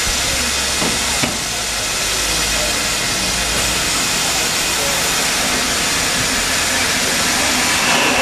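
Ivatt Class 4MT 2-6-0 steam locomotive No. 43106 standing at rest, hissing steam steadily.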